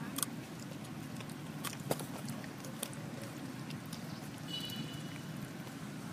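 A few sharp clicks and clinks from a metal keyring and key fob as a baby monkey handles and chews them, over a steady low background rumble. A short high squeak comes about two-thirds of the way through.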